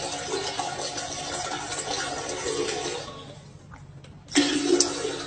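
Rushing water that stops after about three seconds, then a short, loud noise about four and a half seconds in.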